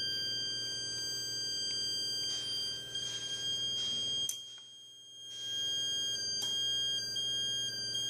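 Magneto timing buzz box sounding a steady electronic buzz tone with high overtones. About four seconds in, after a click, it cuts out for about a second, then comes back. The tone changes as the magneto rotor is turned and the breaker points open and close, which is how the point opening is found on the timing plate.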